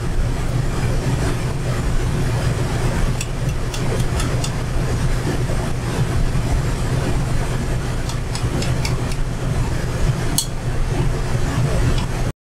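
Beignets frying in a stockpot of hot oil, a steady sizzle with scattered crackles and light taps of the utensil against the pot, over a steady low hum. The sound cuts out abruptly near the end.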